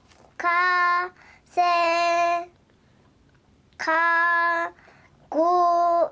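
A three-year-old girl reading a picture book aloud in a slow sing-song chant, holding each phrase on a steady pitch. Four drawn-out phrases, with short pauses between them.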